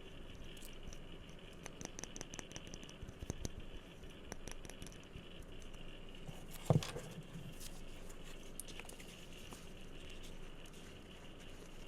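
Light tapping and touching on objects: scattered clicks and short fast runs of taps, with one louder knock about seven seconds in.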